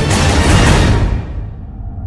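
Dramatic trailer-style soundtrack music that fades out about a second in, its high end dying away and leaving a low rumble.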